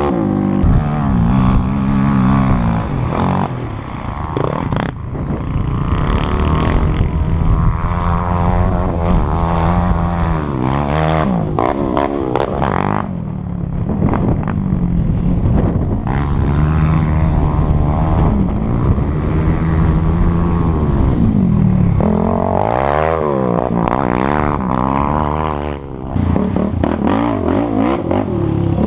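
Yamaha YFZ450R quad's single-cylinder four-stroke engine, bored out to 478 cc with a ported head and DASA exhaust, heard from on board as it is ridden hard: it revs up and drops back over and over as the throttle is opened and shut and the gears are changed.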